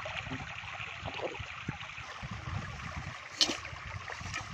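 Shallow stream water running and trickling through a mosquito net held across a ditch, with a low rumble underneath. One short, sharp sound about three and a half seconds in as the net is gathered out of the water.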